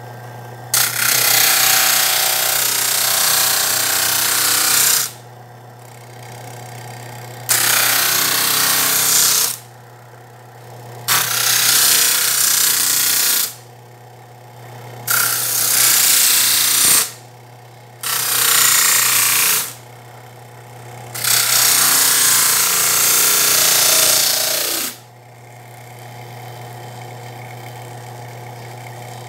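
Belt-driven bench circular saw running with a steady hum, trimming a bent wooden cage arc. Six cuts of two to four seconds each turn the sound into a loud, noisy cutting roar, with the saw dropping back to its free-running hum in between.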